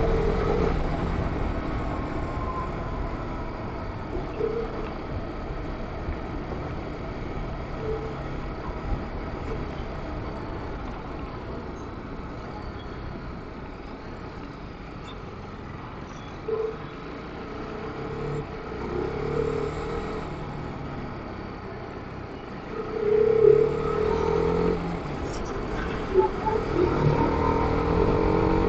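TVS Apache RR 310's single-cylinder engine running under way, with wind rush. The engine sound eases off through the first half, then picks up again, rising in pitch under throttle near the end.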